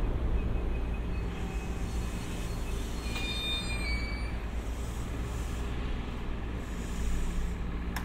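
Train running on the rails with a steady low rumble. A brief high-pitched wheel squeal comes about three seconds in, and there is a single sharp click near the end.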